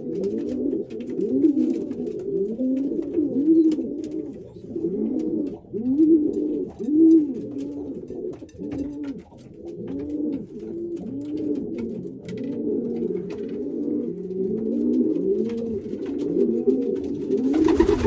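Several racing pigeons cooing in their loft, with many rising-and-falling coos overlapping without a break.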